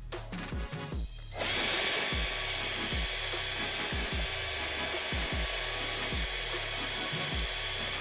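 19.2 V cordless drill spinning a small sanding drum, starting about a second and a half in and then running steadily with a high whine, grinding away the rubber lip inside a pod air filter's inlet so it no longer blocks the carburettor's vacuum port. Background music with a steady beat underneath.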